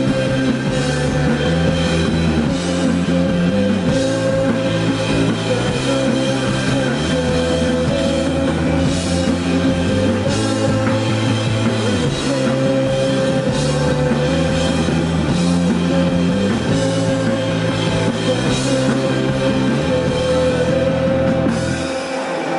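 Live rock band playing loud and full, with a drum kit and crashing cymbals driving it over sustained guitar and a moving bass line. The song stops just before the end, and the bass and cymbals drop out.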